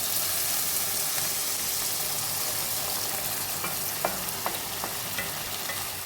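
Potatoes and spices sizzling in hot oil in a cooking pan, a steady hiss that eases slowly, with a few light clicks of a utensil near the middle.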